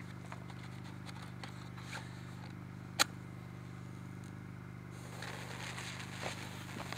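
A match struck with one sharp scratch about three seconds in, then the small cannon's fuse catching and burning with a hissing, crackling sputter from about five seconds in.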